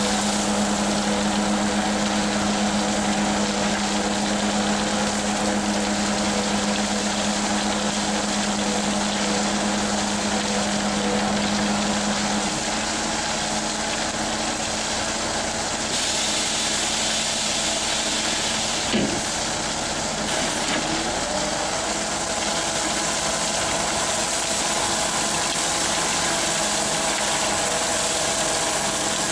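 A truck's diesel engine runs steadily while a conveyor-belt trailer unloads gravel out the rear. The hum changes partway through, and there is a single short knock about two-thirds of the way in.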